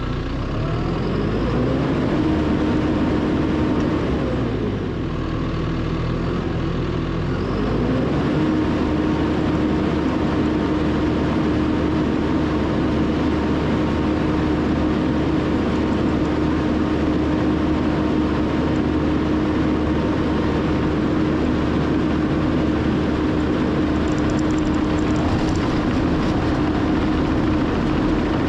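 John Deere 450K LGP crawler dozer's diesel engine revving up, easing back down a few seconds in, then revving up again and holding at steady high revs, with a steady whine over the engine.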